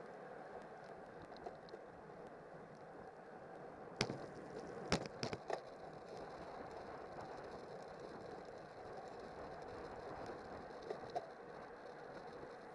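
Steady rush of wind and tyre noise from a road racing bike ridden in a pack, heard from its handlebar-mounted camera. About four seconds in comes a cluster of about four sharp knocks over a second and a half.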